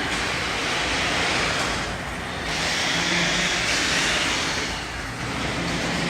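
Garage door opening on its electric opener: a steady mechanical rumble with a low motor hum under it, swelling and easing every second or two as the door rides up its freshly lubricated tracks.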